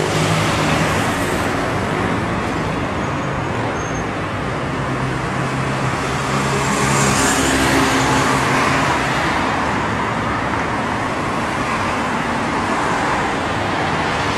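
Street traffic noise: cars driving past across a pedestrian crossing, one passing close about seven to eight seconds in.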